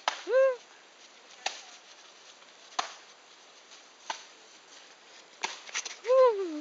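Asian elephant calf giving two short, high squeals, each rising and then falling in pitch: one at the start and one near the end. A few sharp knocks come between them.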